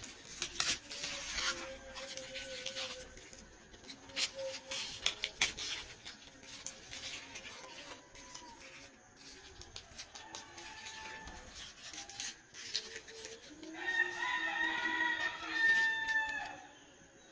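A rooster crowing once near the end, a single long call of about three seconds. Before it, leaves are rustled and crackle close to the microphone.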